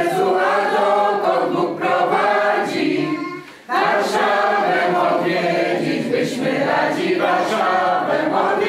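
A roomful of people, men and women, singing a Polish song together from song sheets, with a short pause between lines about three and a half seconds in.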